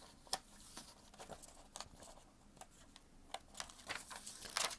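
Sheets of animation paper being handled and flipped, with soft rustles and light clicks and taps scattered through, the firmest near the end.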